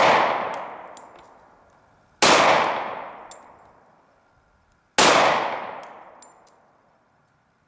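Glock 20 10mm pistol firing: the echo of one shot fading, then two more shots about two and a half seconds apart. Each shot rings out for a couple of seconds as it dies away, with faint clinks after it.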